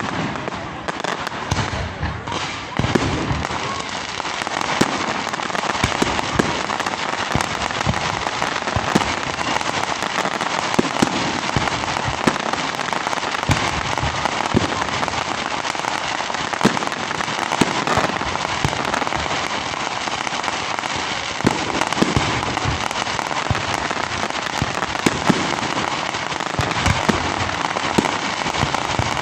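Fireworks going off without pause: a dense crackle with frequent sharp bangs.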